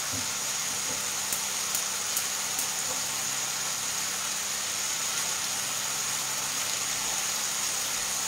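Steady hiss with a low hum from a gas hob as fish fillets fry in a pan, with a few faint crackles about a second and a half to two and a half seconds in.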